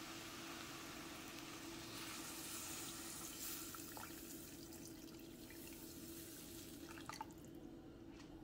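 Water being poured from a glass into a stainless steel pot of sautéed vegetables: faint, steady pouring and splashing that eases off after the middle, with a few light clicks near the end.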